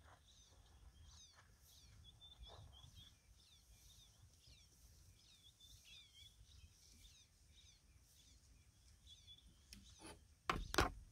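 Birds chirping faintly in the bush, short calls that slide in pitch scattered all through, over a low rumble. About ten and a half seconds in come a few loud knocks, the loudest sound here.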